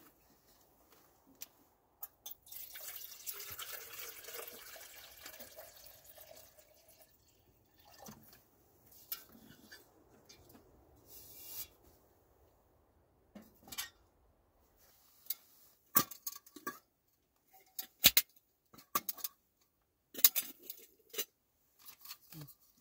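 Water being poured for about four seconds, followed by scattered clinks and knocks of metal cookware.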